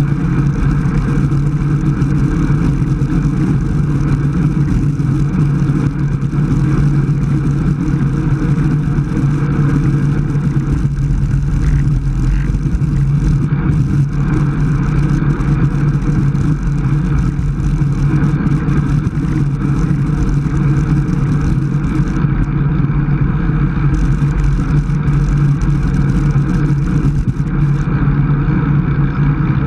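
Steady rush of wind over an action camera's microphone, mixed with road-bike tyre noise on asphalt, from riding at about 22 mph.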